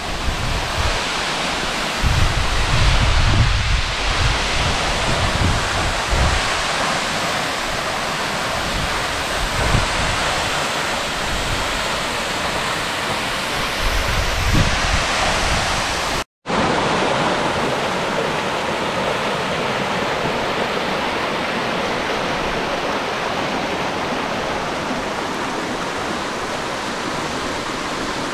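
Waterfall pouring into a shallow rock pool, a steady rush of water, with gusts of wind rumbling on the microphone in the first half. The sound cuts out for a moment about two-thirds of the way through, then carries on as an even rush of flowing water.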